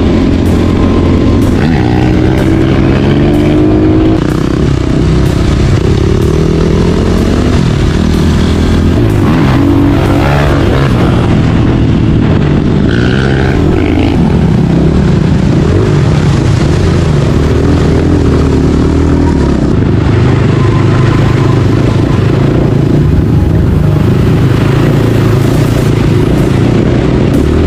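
A 250cc four-stroke enduro dirt bike engine under way, revving, its pitch rising and falling again and again with the throttle and gear changes.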